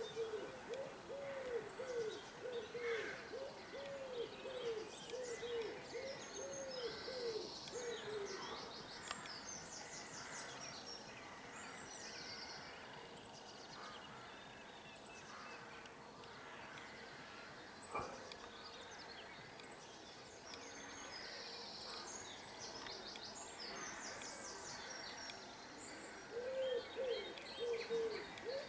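Common wood pigeon cooing, a run of soft low notes in repeated phrases for the first eight seconds or so and again near the end, over small songbirds singing high trills and chirps. A single sharp click comes about eighteen seconds in.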